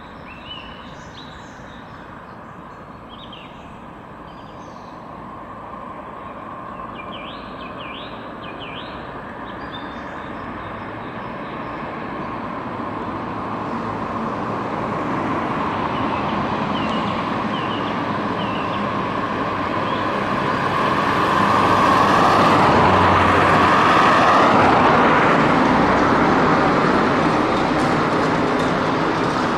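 Electric tram approaching along the tracks, its wheel-on-rail rumble growing steadily louder over about twenty seconds, with a whine that bends in pitch when it is closest. Birds chirp faintly in the first few seconds.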